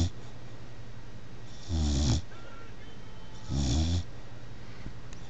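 Three-month-old Bullmastiff puppy snoring in its sleep: two full snores about two seconds apart, and the start of another at the very end.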